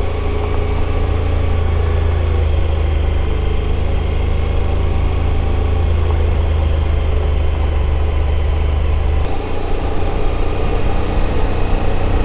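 Suzuki V-Strom adventure motorcycle's V-twin engine running steadily while riding on a gravel road; its steady low note changes about nine seconds in.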